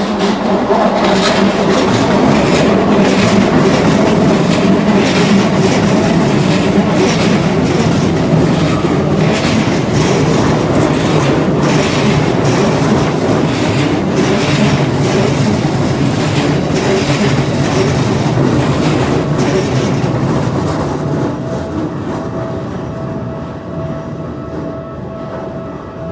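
A Keikyu Line train passing over a level crossing, its wheels clicking over the rail joints in a rapid series that fades away after about twenty seconds. A level-crossing warning bell rings steadily under it and is heard more plainly as the train fades out.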